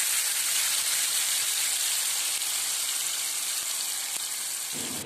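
Ground chili spice paste sizzling as it fries in hot oil in a pan: a steady hiss that eases slightly and stops just before the end.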